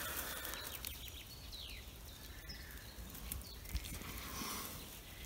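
Faint birdsong in quiet woodland: a few short high chirps that slide down in pitch, over a low hiss, with a couple of soft clicks.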